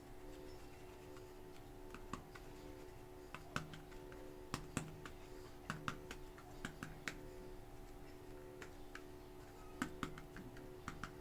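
Super clay packages being handled and opened: scattered light clicks and taps, bunched into a busy stretch in the middle and a few more near the end, over a steady faint hum.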